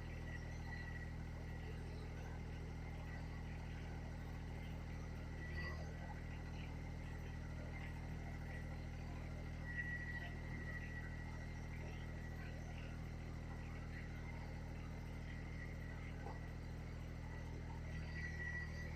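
Kubota BX23 compact tractor's three-cylinder diesel engine running steadily, with a thin high whine that swells a few times and a couple of faint knocks.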